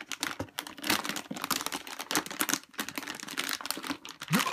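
Crinkling and rustling of a graphics card's plastic wrapping against its cardboard box insert as the card is worked loose and lifted out: a dense, irregular crackle of small clicks.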